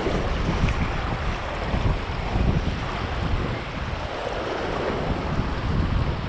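Gusty wind buffeting the microphone, over the wash of choppy river water.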